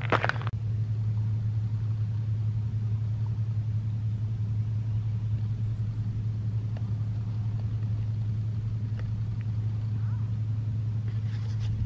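A steady low hum holds level throughout, with a few faint clicks near the end.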